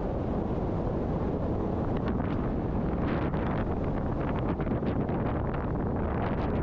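Heavy wind buffeting the microphone of a paramotor in flight, in steady gusts, over the low drone of the paramotor's engine and propeller.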